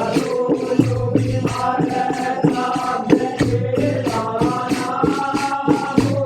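Hindi devotional bhajan: voices singing long held lines over a steady beat of evenly spaced percussion strikes.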